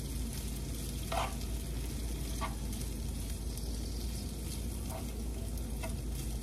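Corn kernels sizzling as they sauté in oil in a skillet, with a few short scrapes of the stirring utensil against the pan.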